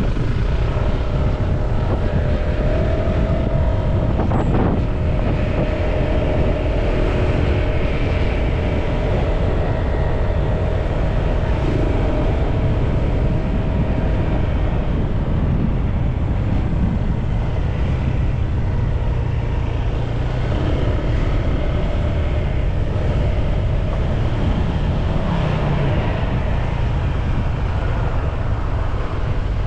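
Honda PCX 150 scooter's single-cylinder engine running while riding, under heavy wind noise on the camera microphone. The engine pitch rises and falls gently in places.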